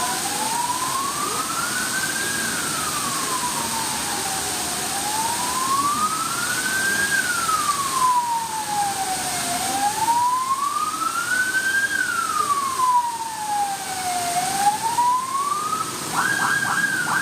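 Emergency vehicle siren sounding a slow wail, rising and falling about every five seconds. Near the end it switches to a fast, chopped pulsing pattern.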